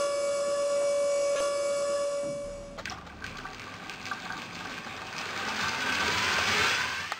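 Lego 9V train motor in the Railway Express locomotive, running with a steady whine that stops abruptly about a third of the way in. Then comes a rushing whirr of the train's motor and wheels on the plastic track, swelling as it passes close by and cutting off near the end.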